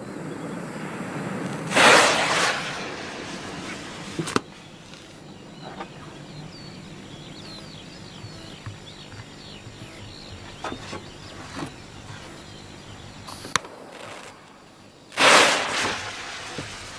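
Large firecrackers going off: two loud bangs, one about two seconds in and one near the end, each with a short ringing tail, and a few sharp cracks between them.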